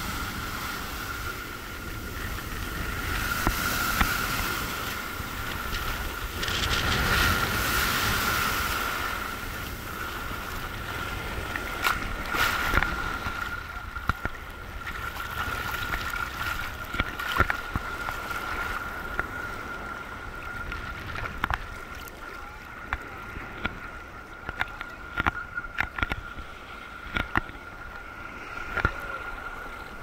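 Sea waves breaking and washing in the shallows of a sandy beach, with water sloshing close around the microphone. The surge is loudest in the first third; later come many short sharp splashes, and a thin steady high tone runs underneath.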